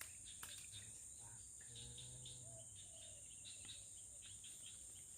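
Insects shrilling: a steady high-pitched drone with many faint chirps layered over it.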